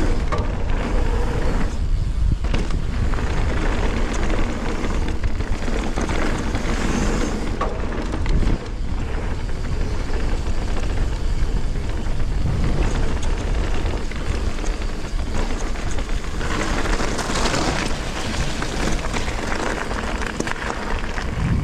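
Mountain bike tyres rolling fast over a dirt trail, with heavy wind noise rumbling on the camera microphone. The noise turns harsher and brighter about sixteen seconds in as the tyres run onto loose gravel.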